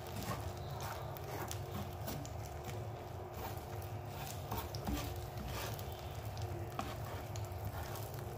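Eggs frying in oil in a frying pan while a spatula stirs and scrapes them, giving many short clicks and scrapes over a light sizzle, with a steady low hum underneath.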